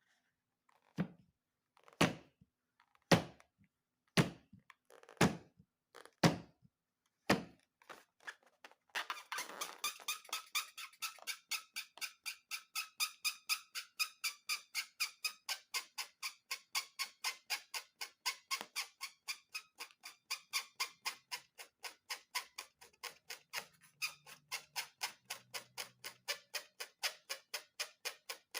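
Squeaks, about once a second for some seven seconds, of the kind rubber balloons make when rubbed or twisted. About nine seconds in, a fast, even ticking of about four a second starts and keeps on.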